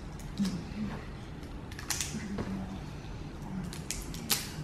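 Thick, stiff shrink-wrap plastic on a book box being poked with a pen and pulled open by hand, crackling in a handful of sharp clicks and snaps spread across a few seconds.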